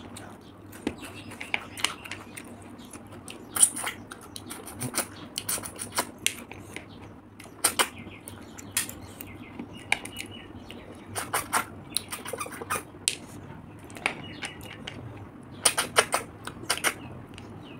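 Mouth sounds of eating fried river snails by hand: sharp sucking and slurping with wet chewing and lip smacks, coming in irregular clusters, some with a brief squeak.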